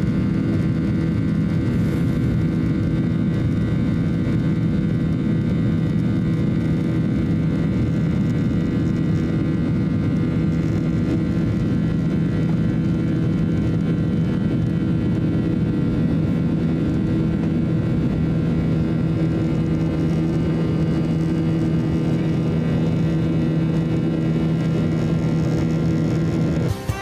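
Cabin noise of a Boeing 737-800 climbing after takeoff: the steady rush of its CFM56-7B turbofans and the airflow, with several steady humming engine tones over it.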